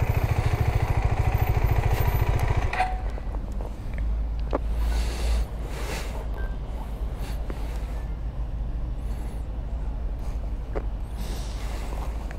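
KTM 390 Adventure's single-cylinder engine idling, then cut off abruptly about two and a half seconds in; a low steady rumble remains afterwards.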